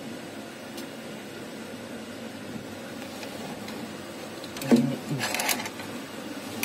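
Passenger train coach rolling slowly through a station, heard from inside: a steady low running hum. Just under five seconds in there is a short, loud burst of sound lasting about a second.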